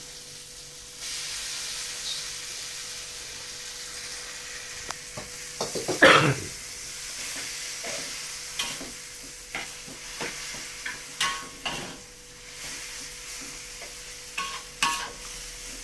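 Fried rice sizzling in a hot pan while a spatula stirs it, with repeated short scrapes and knocks of the spatula against the pan. The sizzle grows louder about a second in, and there is one brief louder sound about six seconds in.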